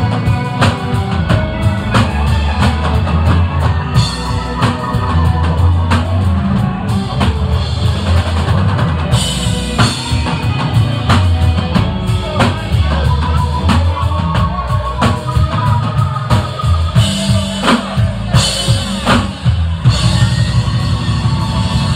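Live rock band playing loudly: a drum kit with bass drum and snare keeping the beat under electric guitars and bass.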